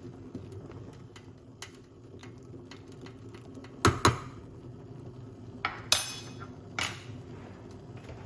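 Kitchen crockery and utensils clinking: five sharp knocks, a pair about four seconds in, another pair near six seconds with the loudest, and one more shortly after, over a low steady hum.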